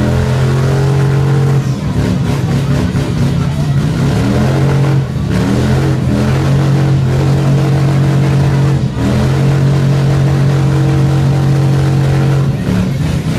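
Motorcycle engine held at high revs through a burnout, its steady note dropping off briefly and climbing back up several times.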